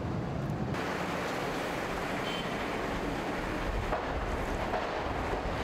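Steady rush of wind and sea around a large passenger ferry, with wind buffeting the microphone; the noise fills out in the higher range about a second in.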